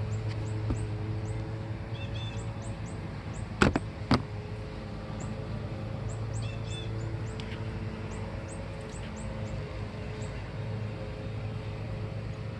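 Two sharp clicks about half a second apart over a steady low hum, with short, high-pitched chirps repeating in little clusters throughout.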